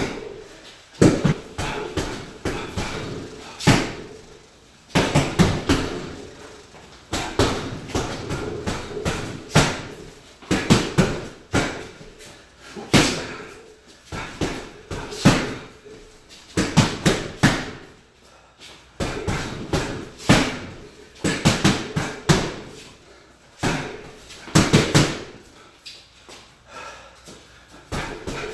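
Boxing gloves striking a TITLE 3-in-1 wall-mounted heavy bag, the hits landing in quick combinations of several punches with short pauses between.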